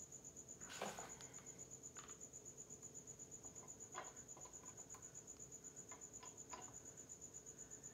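A cricket chirping in a steady, fast, even pulse, faint and high-pitched. A short rustle about a second in and a few light clicks of small parts being handled sit over it.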